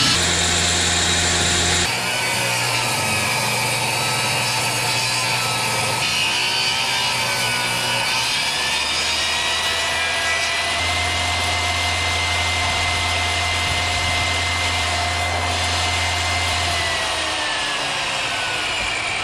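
Benchtop table saw running and ripping a long wooden board into thin strips: a steady, loud saw noise with a whine that rises about ten seconds in, holds, and drops away near the end.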